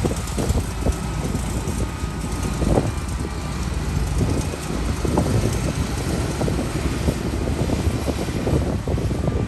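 Bulldozer's diesel engine running steadily with a low rumble, under irregular crackling and clatter and a faint thin whine.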